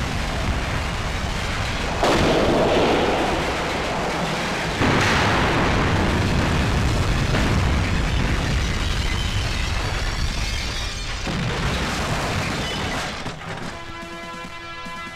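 Film explosions: a heavy, rumbling blast sound with two fresh loud blasts, about two seconds in and about five seconds in, each dying away slowly. Near the end the blasts fade and background score music with held notes comes to the front.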